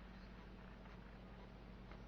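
Near silence: room tone with a steady low hum and two very faint ticks about a second apart.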